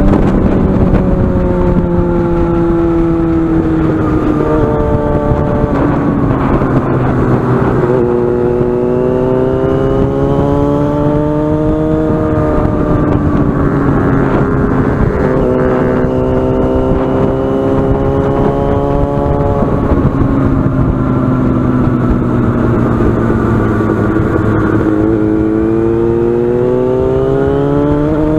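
Yamaha FZ6N's 600 cc inline-four engine through a carbon-fibre aftermarket exhaust, heard onboard while riding. The engine pitch climbs and falls repeatedly as the bike accelerates and backs off, with several sudden drops in pitch at gear changes.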